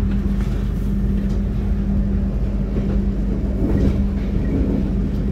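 Passenger train carriage heard from inside while running along the track: a steady low rumble of the wheels and rails with a constant hum.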